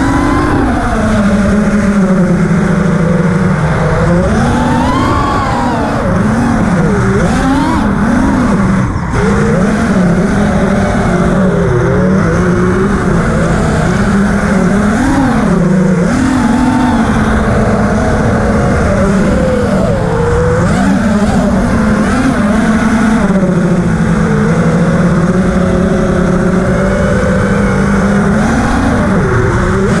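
FPV quadcopter's brushless motors and propellers whining, the pitch rising and falling over and over with the throttle, heard from the camera on board.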